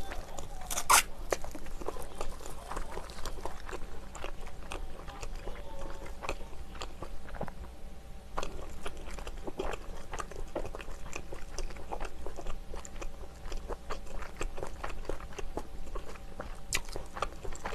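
Close-miked biting and chewing of sauce-coated fried chicken: many small crunches and crackles throughout, with a louder crunching bite about a second in.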